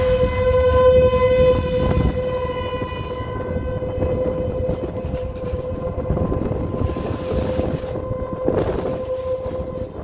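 ASC T-128 outdoor warning siren sounding a steady tone during a siren test.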